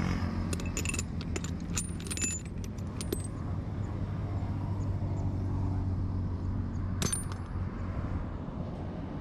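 Small metal parts clinking and rattling as hands rummage through a pile of them: a flurry of clicks in the first three seconds and another burst about seven seconds in, over a steady low hum.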